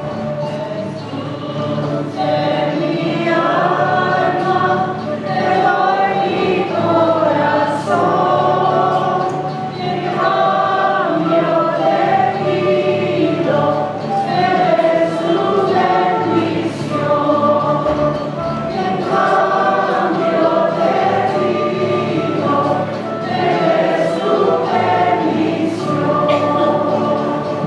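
Choir singing a hymn, with steady low held notes from an accompanying instrument underneath.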